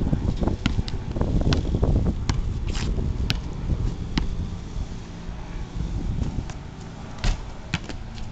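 A basketball bouncing on a concrete driveway as a player dribbles: sharp thuds at uneven spacing. Wind rumbles on the microphone, heaviest in the first few seconds.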